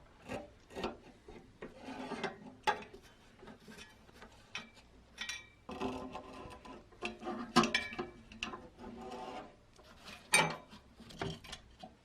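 Hand tools scraping, rubbing and knocking on the metal parts of an old rusty electric fan, in irregular strokes with a few sharp clinks that ring briefly.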